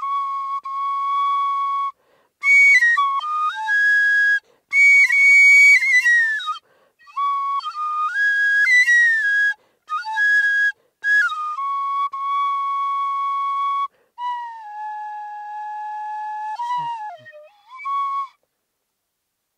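Bamboo flute playing a slow solo melody in short held phrases separated by brief breaths, with a clear, pure, high tone. The last phrase slides down in pitch, and a short final note ends the tune shortly before the end.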